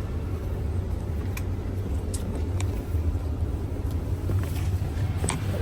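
Steady low rumble of a tour bus engine and road noise, with a few faint clicks.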